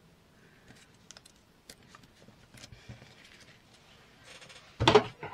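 Light taps, clicks and rustles of card stock and a metal cutting die being handled, then a single loud knock near the end.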